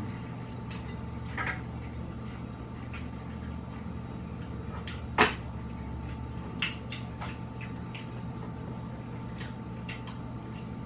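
Scattered light clinks and knocks of cutlery and dishes at a dinner table, with one louder knock about five seconds in, over a steady low hum.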